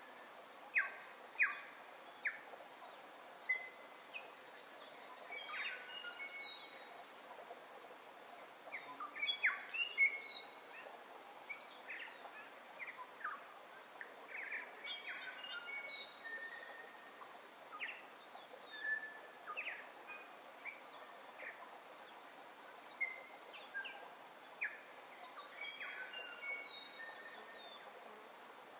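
Many birds chirping and whistling in short, scattered calls over a steady background hiss.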